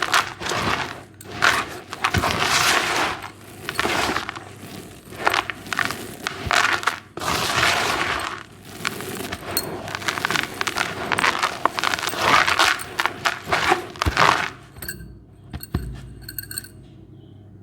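Dry, gritty white cement being crumbled and crushed, crunching and crackling in repeated bursts with sharp grainy clicks, which stops about fifteen seconds in.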